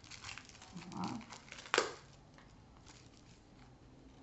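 Small cardboard card-deck box being worked open by hand, with crinkling and rustling of the card and packaging. There is one sharp snap a little under two seconds in.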